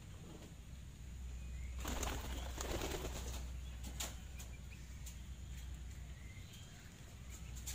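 Faint outdoor ambience around free-ranging chickens: a brief rustling flurry about two seconds in, a few light clicks, and a steady low hum underneath.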